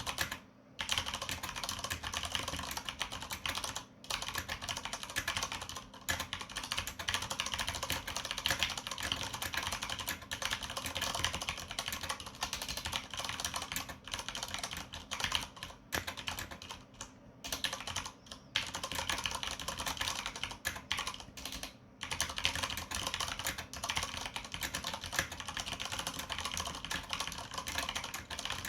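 Continuous typing on a Cooler Master CM Storm QuickFire Rapid-i mechanical keyboard with Cherry MX Brown switches and Vortex PBT keycaps: a dense stream of key clacks broken by a few short pauses.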